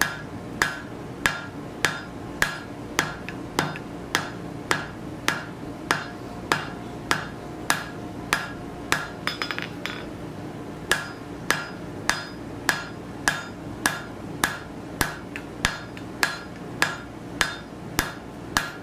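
Hand hammer striking a glowing steel bar on an anvil, drawing out a taper, at about one and a half blows a second with a ring after each. There is a short break with a few light taps about halfway through.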